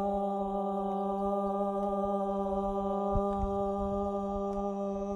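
A human voice chanting the qigong heart healing sound 'haaa' as one long, steady tone on the exhale.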